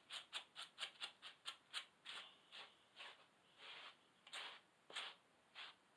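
A hand brush scrubbing through the wet fur of a soaked beaver hide, at first in quick short strokes about five a second, then in slower, longer strokes about every half second.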